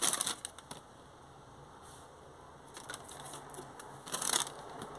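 Crinkling and rustling from handling grocery packaging: a short burst right at the start and another about four seconds in, with faint rustling between.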